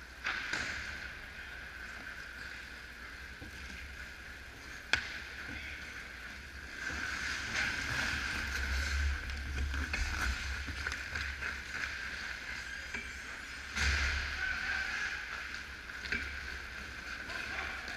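Ice hockey skates scraping and carving on the ice, louder in the middle stretch as players crowd the net and again in a burst near the two-thirds mark, with a sharp crack about five seconds in and a steady hum underneath.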